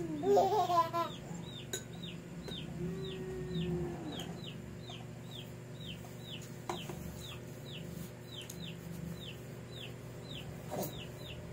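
A small bird peeping over and over, short falling high-pitched peeps about two or three a second, like a chick calling. A toddler's brief voice is heard near the start.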